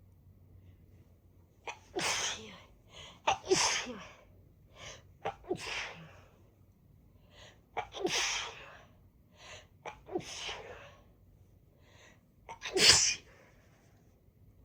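A person sneezing over and over, about six sneezes with short sharp catches of breath between them, set off by chhinkni sneezing snuff in a congested nose. The last sneeze, near the end, is the loudest.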